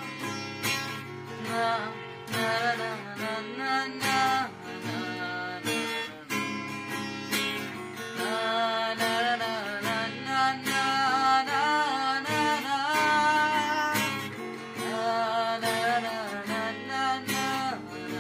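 Steadily strummed acoustic guitar with a man singing a Bengali song over it in phrases a few seconds long.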